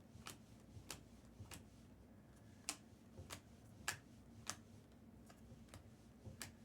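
Quiet, evenly spaced sharp ticks, about one every 0.6 seconds.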